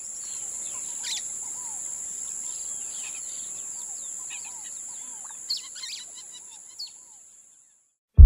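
Several birds chirping and singing, with a steady high-pitched whine underneath, fading out near the end.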